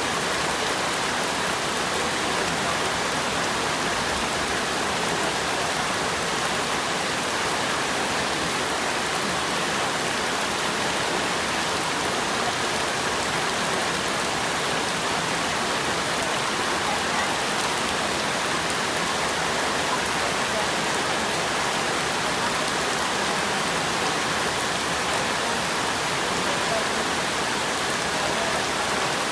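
Steady rain falling: an even, unbroken hiss that holds the same level throughout.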